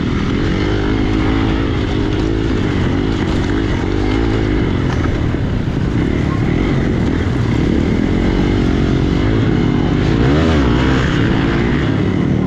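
Hero XPulse single-cylinder motorcycle engine running under load off-road, its pitch rising and falling with the throttle, with a brief rev-up about ten seconds in.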